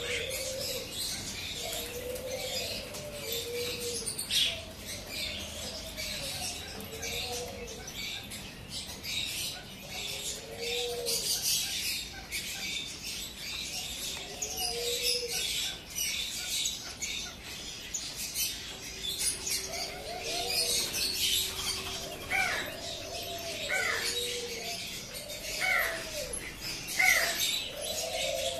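A mixed flock of captive birds: many small birds chirping constantly and high, with low arched cooing calls repeating every couple of seconds. Short rising whistles join in during the last few seconds.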